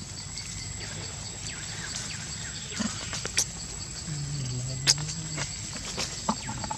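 Long-tailed macaques close by, giving a few short sharp calls, with a low drawn-out call from about four seconds in.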